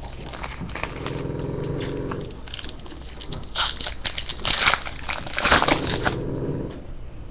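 Foil trading-card pack being torn open and crinkled by hand, with several sharp crackling bursts in the second half. A low buzzing hum sounds about a second in and again near the end.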